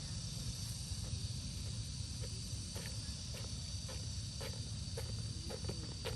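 Insects drone steadily in one high, even tone over a low background rumble. From about halfway through, short irregular snaps or rustles come roughly every half second.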